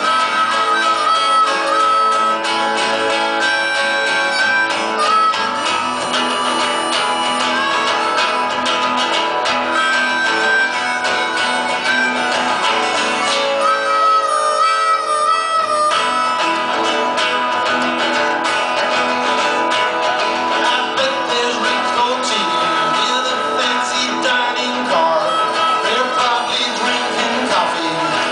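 Live acoustic band music: strummed acoustic guitars with a harmonica playing held, wailing lead notes over them in an instrumental passage.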